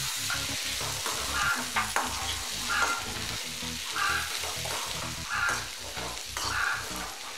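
A perforated metal spatula stirring raw potato cubes and green peas through sizzling onion-tomato masala in a metal kadhai, scraping the pan in repeated strokes over a steady frying hiss.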